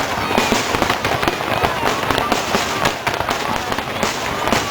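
Fireworks display: a dense, continuous run of bangs and crackling pops, with no pause.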